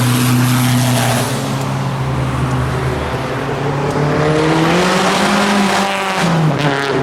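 Modified car engine running steadily at low revs, then revving up so that its pitch climbs over about two seconds, and dropping back near the end.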